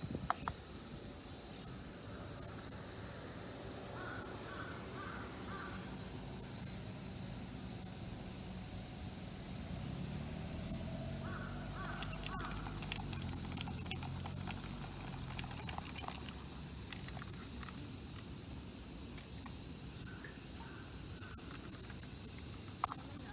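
Birds calling in short runs of three or four notes, three times, over a steady high insect drone. A low hum swells and fades in the middle.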